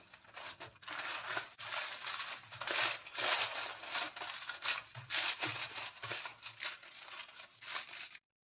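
Aluminium foil crinkling and rustling in irregular strokes as it is rolled tightly by hand around a log of sweet. It cuts off suddenly near the end.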